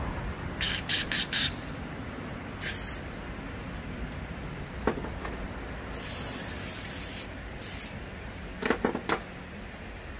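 Hissing spray in short bursts: four quick squirts, one more, then a longer spray of over a second and a short one. A few sharp clicks or knocks sound between them, over a steady low background hum.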